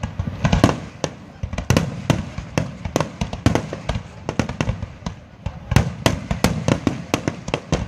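Aerial firework shells bursting in a dense, irregular barrage, several sharp bangs a second, each trailing a short low rumble.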